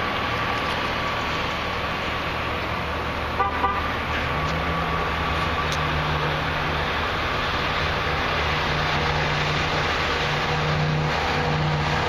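Baja Sunsport jet boat running at speed on a pass, its engine drone growing stronger and a little louder as it comes nearer, over a steady rushing hiss. Two short sharp blips about three and a half seconds in.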